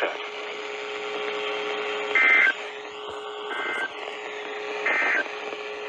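Three short bursts of Emergency Alert System (SAME) digital data tones from a NOAA Weather Radio broadcast, about 1.3 seconds apart. They are short enough to be the end-of-message code closing the warning. Under them runs a steady low hum and radio hiss.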